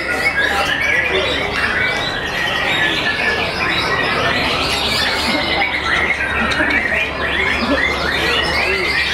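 Many caged white-rumped shamas singing at once: a dense, unbroken chorus of overlapping whistles, chirps and trills.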